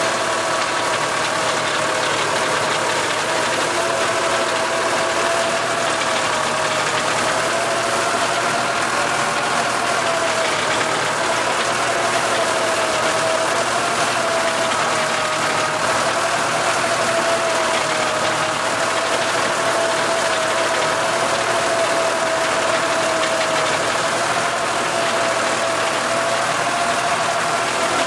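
Massey Ferguson tractor's diesel engine running steadily under load while driving a rotary tiller, with a steady high whine over the engine noise.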